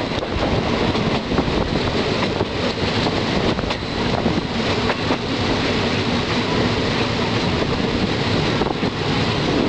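Passenger train running along the line, heard from an open carriage window: a steady rumble of wheels on rails with rushing air, broken by a few sharp clicks.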